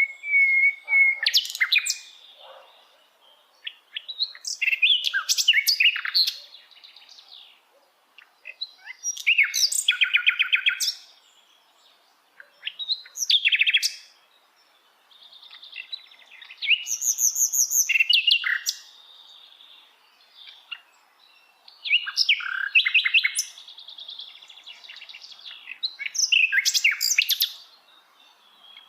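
A sikatan londo (flycatcher) singing in short phrases of rapid, varied chirps and trills, about seven of them, each a second or two long with pauses of a few seconds between.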